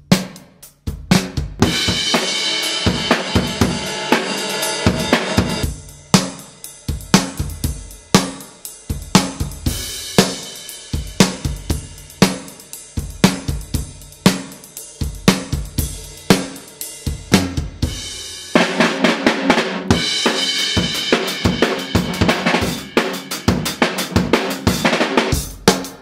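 Drum kit played in a steady groove, centred on a pine 2x4 stave snare drum with synthetic gut snares, which lack the snap and pop of wire snares, alongside kick drum, hi-hat and cymbals. Cymbals ring in a sustained wash for a few seconds near the start and again for several seconds about three quarters of the way through.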